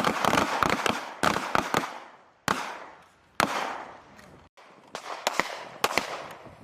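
Pistols firing on a range: a fast string of shots, then a few single shots, then another quick run of shots near the end, each with a short echo.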